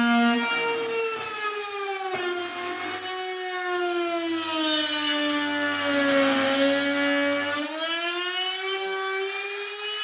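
Handheld trim router running at full speed, a loud whine whose pitch sags through the middle seconds as the bit cuts a shallow slot in the wood for a drawer lock's bolt, then climbs back as the load eases.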